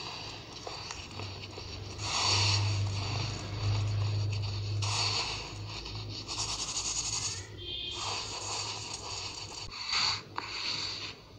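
Hands rubbing powdered baking soda through the fine mesh of a plastic sieve: scratchy, gritty rustling in bursts of a second or so, over a steady low hum. Near the end a lump of the powder is crumbled between the fingers.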